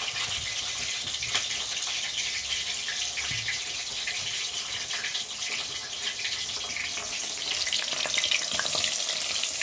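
Hot cooking oil sizzling steadily in a pot, with many small crackles and pops, as scallion, ginger and garlic fry in it.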